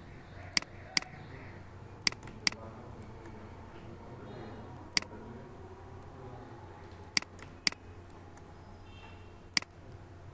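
Computer mouse button clicking, about eight sharp clicks, mostly in pairs about half a second apart, as anchor points are placed and dragged with a pen tool. A faint steady hum runs underneath.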